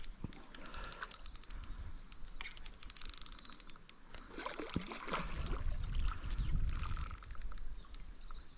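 Fishing reel clicking in runs of sharp ticks, densest about three seconds in, as a hooked carp is played on light line.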